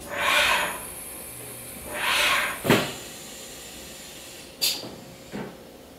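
Milltronics VM30 automatic tool changer and spindle doing a tool change: two bursts of air hissing, the second followed straight away by a sharp clack, then a lighter click near the end.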